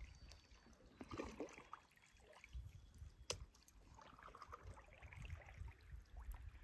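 Faint water trickling and dripping beside a kayak, over a low rumble, with a single sharp click about three seconds in.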